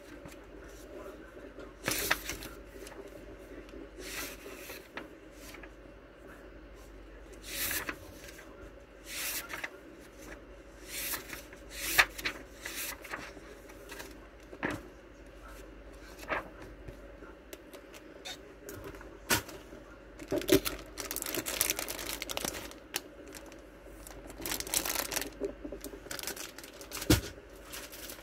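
Paper pages of a planner being flipped and handled: irregular rustles and flaps, some sharper than others, over a faint steady hum.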